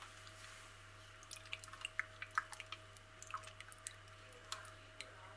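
Hands squishing and turning raw chicken breast pieces in an oil-and-lime-juice marinade in a stainless steel bowl: faint, irregular wet squelches and small clicks.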